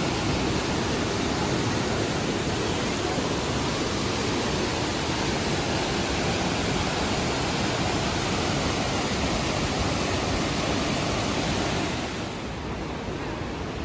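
Waterfalls and cascades pouring through a rock gorge: a steady rush of water. About twelve seconds in it becomes a little quieter and duller.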